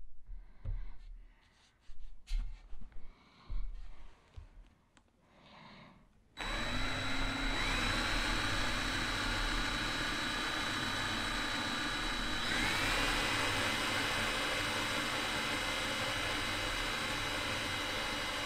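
DeWalt 18V XR cordless drill boring a pilot hole through a chrome light bar with a small bit. After a few light clicks, it starts suddenly about six seconds in and runs steadily with a high whine, speeding up twice.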